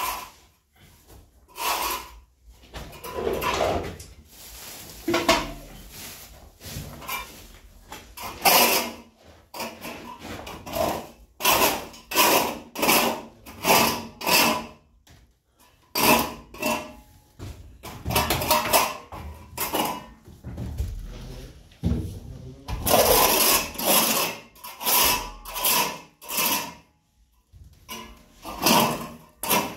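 A hand tool working in repeated rough scraping strokes, about one or two a second, with a few short pauses.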